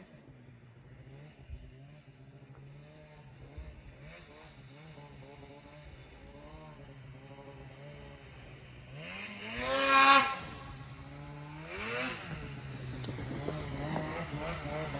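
2014 Polaris RMK 800 two-stroke snowmobile running some way off, its engine note wavering. About nine seconds in it revs hard, the pitch rising to a loud peak, with a second shorter rev a couple of seconds later; then it holds a steady note that grows slowly louder.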